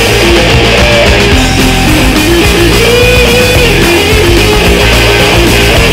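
Loud garage punk rock band recording: electric guitars, bass and drums playing continuously, with a melodic line arcing up and down in pitch.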